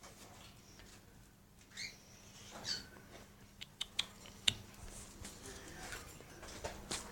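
Caged pet birds, quiet: two short chirps, one rising and one falling, about two and three seconds in, followed by a few sharp clicks and taps of the birds moving on perches and cage wire.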